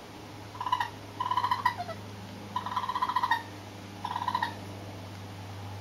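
Baby raccoons (kits) trilling: four short, rapidly pulsed calls, each well under a second long, over a steady low hum.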